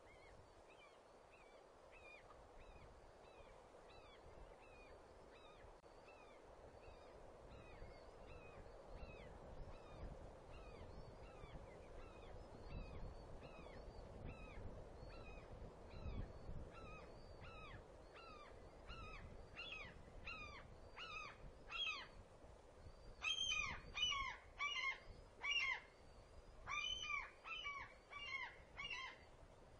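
Juvenile white-tailed eagle calling: a long series of short, high cries, about two a second. They start faint, grow steadily louder, and come loudest in quick groups over the last several seconds. A low hiss of wind on the nest-cam microphone runs underneath.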